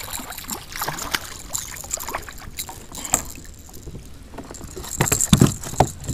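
Handling sounds in a fishing kayak while a hooked bass is fought and brought aboard: scattered clicks, rattles and knocks, with heavier knocks about five seconds in.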